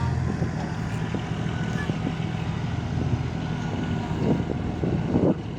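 Heavy diesel engine running under load in soft mud. A steady low hum gives way to a rougher sound just after the start, with louder irregular bursts near the end.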